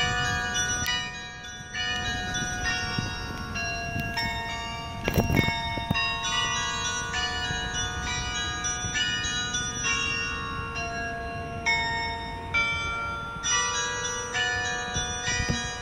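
Tuned bells in a clock tower playing a melody, about two struck notes a second, each ringing on under the next. A brief thump about five seconds in.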